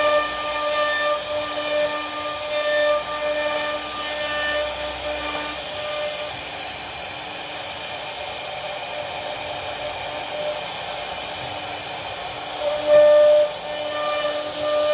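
CNC router spindle cutting wood: a steady pitched whine over the hiss of the bit cutting. The whine fades in the middle and comes back loudly about two seconds before the end.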